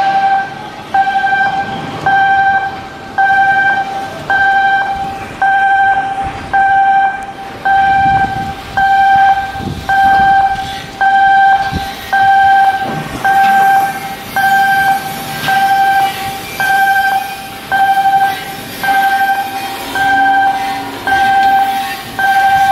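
Electronic warning alarm beeping at one steady pitch, one loud beep about every second, repeating without a break.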